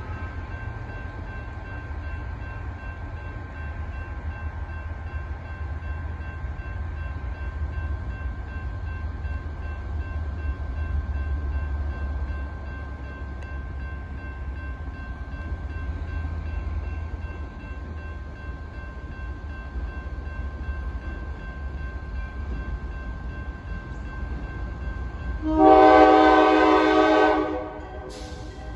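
Approaching diesel freight locomotive MEC 7622 with a steady low rumble. Near the end comes one loud blast of its air horn, about two seconds long.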